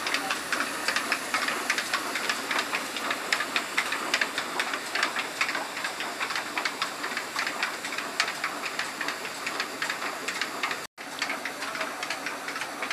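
Belt-driven wheat crusher running and grinding grain: a steady hiss under a dense clatter of fast, irregular ticks. The sound cuts out for an instant near the end.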